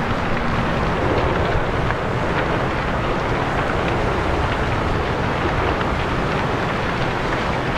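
Steady rushing noise, mostly wind buffeting the microphone, with a few faint scattered crackles.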